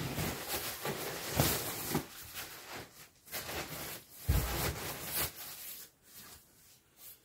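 Rustling and swishing of a down sleeping bag's synthetic shell fabric as it is handled and pressed, in several surges, with a soft thump about four seconds in.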